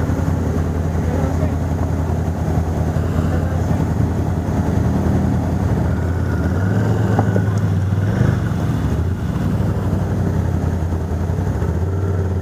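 ATV engines idling close by, with the engine note rising and strengthening a little past the middle for a few seconds before settling back to idle.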